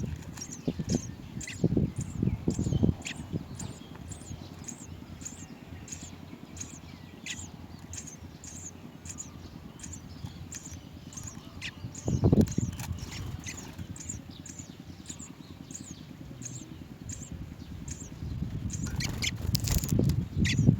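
Small bird chirping: short, high chirps repeating about twice a second, with low rumbling knocks near the start, about twelve seconds in, and near the end.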